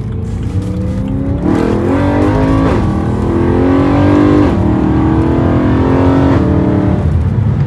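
BMW E92 M3's S65 V8 under medium acceleration, heard from inside the cabin. The revs climb and fall back several times as the manual gearbox is shifted up through the gears.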